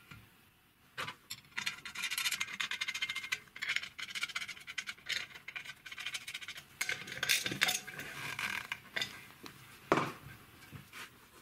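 Gloved hands rubbing and handling a bolted steel flange plate on top of a steel tank: continuous scratchy rubbing with small metallic clicks, and a sharper knock about a second in and another near the end.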